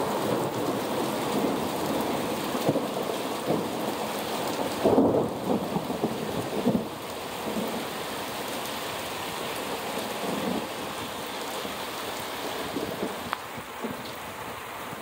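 Heavy rain pouring steadily in a thunderstorm, with thunder rumbling through it. The thunder swells loudest about five seconds in, and the storm eases a little toward the end.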